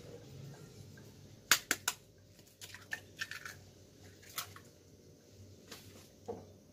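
An egg tapped sharply against a hard edge three times, about a second and a half in, cracking its shell, followed by softer clicks and crackles as the shell is pulled apart and the egg goes into the pan.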